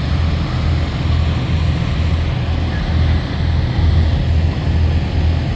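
Semi-truck diesel engine idling, a steady low rumble that throbs unevenly, with faint voices behind it.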